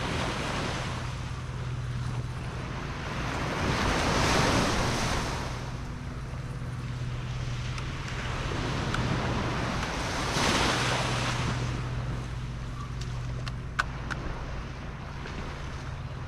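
Ocean waves washing in on the shore, two swells rising and falling about four and ten seconds in, with wind buffeting the microphone and a sharp click near the end.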